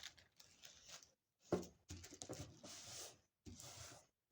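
Tissue paper being folded and creased by hand: faint, irregular rustling in short bursts, with a sharper rustle about a second and a half in.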